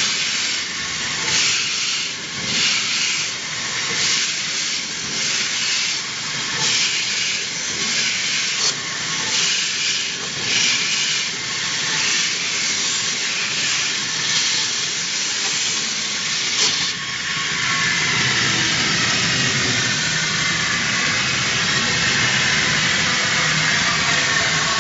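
Metal belt sanding machine running, its abrasive belt grinding a perforated metal plate: a steady hiss with regular pulses. About two-thirds of the way through, the pulsing stops and the sound turns to a steadier, fuller hiss.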